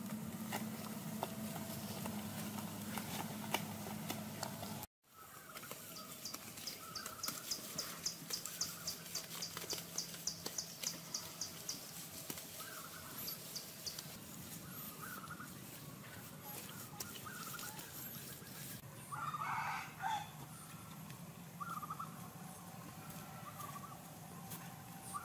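Birds chirping and calling outdoors: a rapid run of high chirps, about four a second, for several seconds, scattered short calls, and one louder call of about a second some three-quarters of the way through. Under them come soft clicks and scrapes of hands smoothing wet mud, and the sound drops out briefly about five seconds in.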